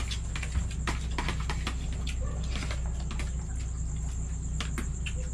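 Light clicks and scrapes of spoons and fingers on plastic plates and bowls as several people eat, over a steady low hum and a constant thin high-pitched tone.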